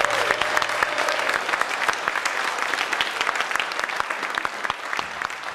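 Audience applauding after a song, a dense patter of many hands clapping that slowly thins and fades.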